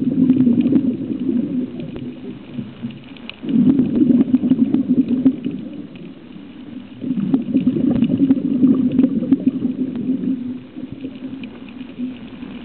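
Scuba regulator exhaust: a diver's exhaled breath bubbling out in three bursts of two to three seconds each, about every three and a half seconds, with quieter stretches between as the diver breathes in.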